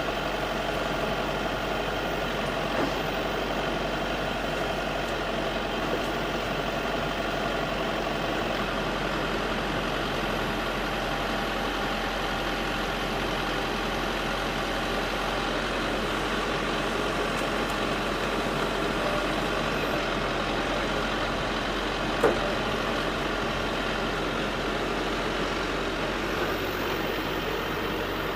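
Backhoe engine running steadily, with one sharp knock about three quarters of the way through.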